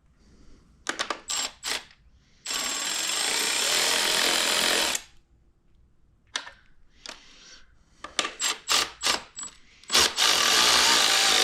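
A power drill/driver running bolts in, in two steady bursts of about two and a half seconds and a second and a half, with sharp clicks of the tool and bolts being handled in between.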